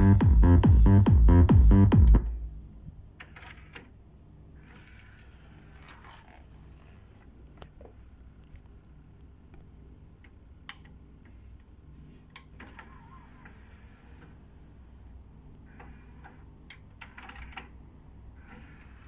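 Music with heavy bass and a steady beat playing loudly from a CD through a Sony HCD-H881 music centre, cutting off about two seconds in. After that only a low hum and scattered clicks and taps.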